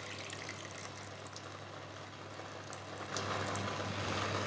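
Red cabbage juice pouring into a pan of reduced red wine, then the sauce simmering faintly in the hot pan with small crackles, a little louder from about three seconds in.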